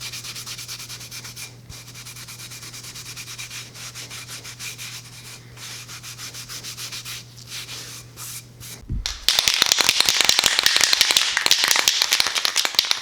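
Rapid back-and-forth rubbing strokes on a small wooden box, with a steady low hum underneath at first. About nine seconds in the hum stops and the rubbing gets louder and denser.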